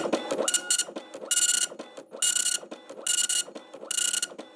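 Dot-matrix printer printing: the print head sounds in short rasping bursts, about one a second, as it passes across the paper, with quieter carriage and paper-feed movement between passes.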